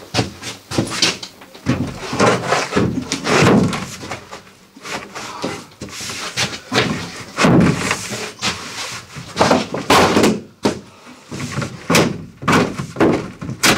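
Large plywood wall panel being manoeuvred and pushed up into place against the cabin side: a run of irregular knocks and thuds of the board against the framing and wall.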